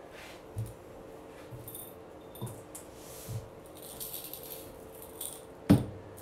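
Small seashells and fish-tank rocks clattering and rattling in a bowl as a hand sifts through them, with a few soft bumps and one sharp knock near the end.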